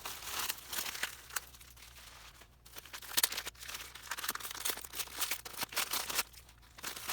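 Packing material around a model train car being handled and unwrapped: irregular crinkling and rustling in quick bursts.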